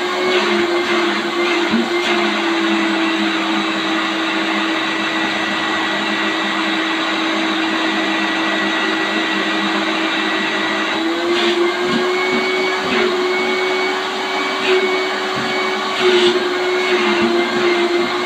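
Vacuum cleaner motor running steadily as a chair's upholstery is cleaned, a constant hum whose pitch rises a little partway through, with a few light knocks of the nozzle toward the end.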